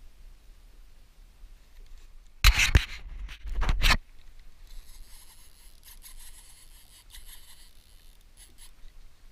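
Loud rubbing handling noise close to the microphone for about a second and a half, followed by the faint, scratchy ticking of a small plastic kiddie fishing reel being cranked.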